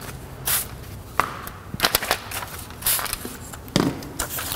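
Clear plastic paint protection film crinkling and rustling as it is handled, a run of short crackles, scrapes and clicks.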